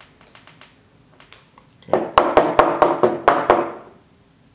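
Faint clicks of a steel pick among small steel ball bearings, then about a second in a loud run of some seven sharp metallic rattles over two seconds, each ringing briefly: the loose steel balls and steel block of a HIWIN HGH15CA linear guide carriage rattling as it is lifted and handled during disassembly.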